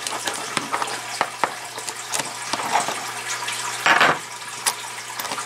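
Small metal mount parts clicking and knocking as they are handled on a countertop, with a louder clatter about four seconds in as pieces are set down, over a steady hiss.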